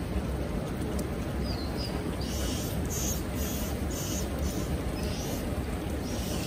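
Steady low rumble of wind and a rushing mountain stream, with soft, repeated splashing hiss from about two seconds in and a couple of faint short high squeaks early on.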